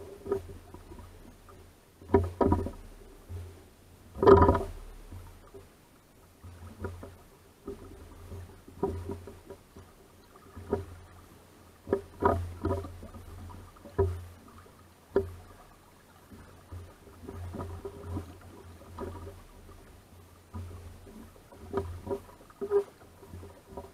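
Lake water slapping against the hull of a small sailing dinghy under way in light wind: irregular splashes and knocks every second or so, the loudest about four seconds in.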